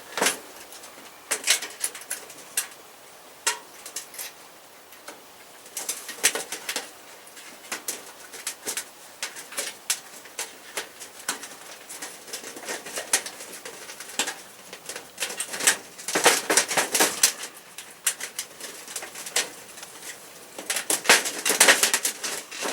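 Thin titanium stove panels and retaining wire being handled and fitted together: irregular metallic clicks, ticks and scraping rattles, busiest in clusters about six seconds in, around sixteen seconds and near the end.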